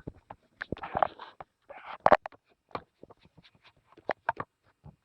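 A brush scrubbing dust off a chainsaw's plastic cooling-fan grill, with handling clicks. There is a run of sharp clicks and taps, and two longer scratchy sweeps about one and two seconds in.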